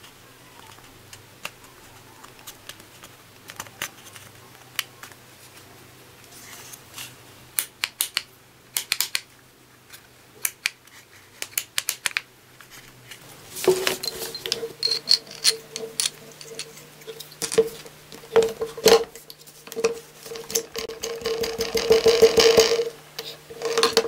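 Scattered clicks and taps of plastic and metal parts being handled, turning about halfway through into denser clinking and rattling. The sounds come from the gear, chuck spindle and motor of a Peugeot 400W electric drill being seated in its open plastic housing half.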